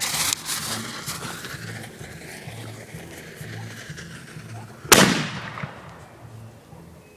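Consumer aerial firework going off: a burst at the start that trails into hissing and crackling, then a single loud, sharp bang about five seconds in that dies away.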